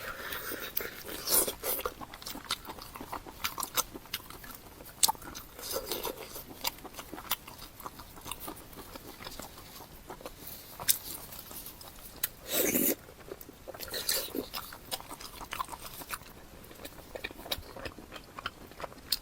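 Close-miked eating: a person chewing and biting into meat on the bone, with many small wet mouth clicks and a few louder bites.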